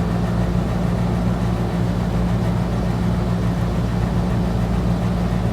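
A steady, low mechanical hum that keeps an even level and pitch.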